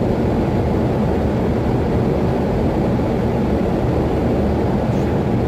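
Steady engine and airflow noise inside an aircraft's cockpit on final approach to land, an even low rumble with a faint steady hum.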